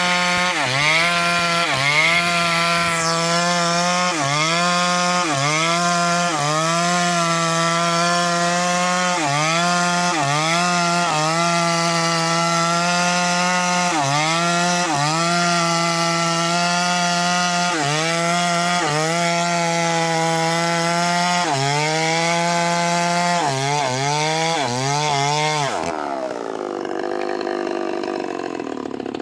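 Old Eagles 6620 two-stroke chainsaw running at high revs through wood, its engine pitch dipping briefly every second or two. Near the end the revs fall away to a lower note.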